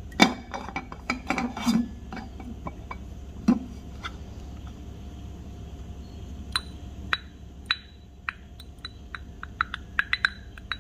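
A large ice ball clinking against the sides of a glass of iced milk coffee as the glass is handled, in sharp, ringing clicks that come thick and fast over the last four seconds. A few louder knocks of glass on a wooden coaster and the countertop come in the first two seconds.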